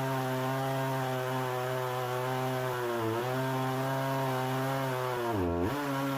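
Two-stroke 16-inch Husqvarna chainsaw running at high revs while ripping a pine log lengthwise in an Alaskan chainsaw mill. The engine note sags slightly about three seconds in, then drops sharply about five and a half seconds in before picking back up: the saw bogging under the load of the long cut, which the owner finds a little underpowered for milling.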